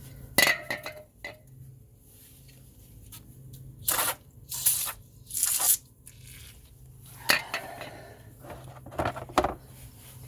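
Metal brake parts clanking as they are handled, with a few short hissing spray bursts of degreaser onto the caliper in the middle and scattered clicks.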